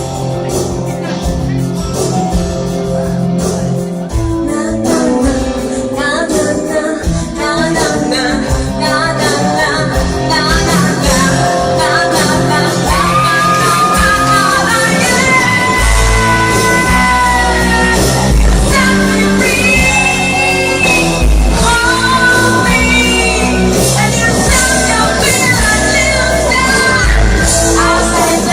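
A song with sung vocals over band backing. It grows fuller with a strong bass from a little past halfway, and the voice holds long high notes.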